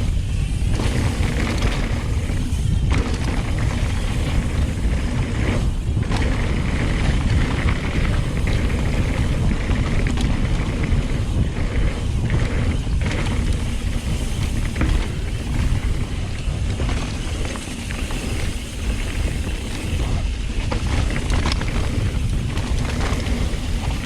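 Wind buffeting the microphone and knobby tyres rolling over a dirt trail during a mountain bike ride, with scattered knocks from bumps and landings.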